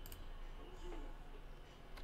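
A few faint clicks from a computer mouse and keyboard over a low steady hum.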